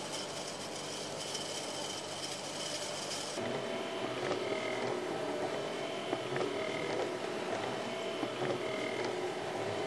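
A small electric fan running and blowing small beads, which patter and rattle. About three seconds in, this gives way to a motorised circular art installation running with a steady hum and scattered clicks as a cluster of beads rolls round its channel.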